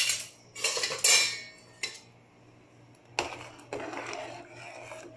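Metal spoon clinking and scraping against a metal pot: a few sharp clinks in the first two seconds, then steady scraping while thick soup is stirred from about three seconds in.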